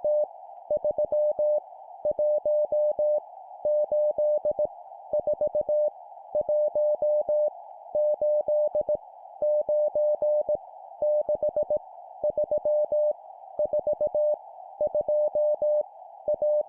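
Morse code sidetone sending random numbers at 17 words per minute: one steady beep keyed on and off in quick dots and dashes, grouped into characters about a second long with short gaps between, about a dozen in all. Each key-down and key-up gives a faint click, and a steady band of hiss runs underneath the beeps.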